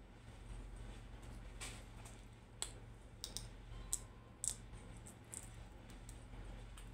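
A wooden spatula stirring rice in a stainless steel pot, giving scattered light clicks and taps against the metal, over a low steady hum.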